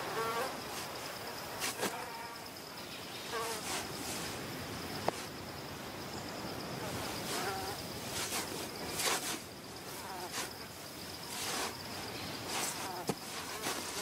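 A steady high-pitched insect drone over a soft hiss. Scattered brief scratchy scrapes of sand come as an olive ridley sea turtle digs its nest hole with its hind flippers, and there are a few short chirps.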